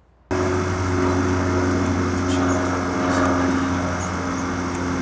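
Electric-driven propeller of the Rolls-Royce ACCEL ionBird test rig running steadily: a loud rush of air over a steady hum of several tones. It cuts in abruptly just after the start.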